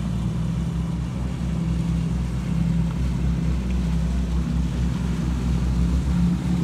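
Motor cruiser's engine running steadily as it passes close by: a low, even drone.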